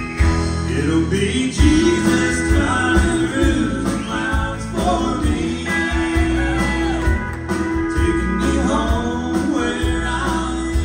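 Live country band playing a song, with acoustic guitars, steel guitar, electric bass and drums behind a man singing lead.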